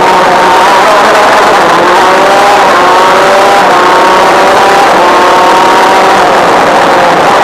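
Honda two-stroke shifter kart engine at racing revs, heard onboard. Its pitch climbs steadily, dips back twice, and falls away near the end.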